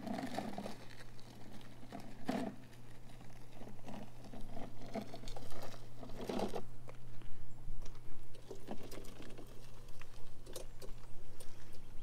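Gravel crunching in irregular short bursts, over a steady low hum.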